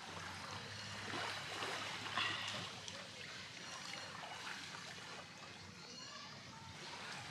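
Shallow seawater trickling and lapping at the edge beside a small boat, with a brief louder sound about two seconds in.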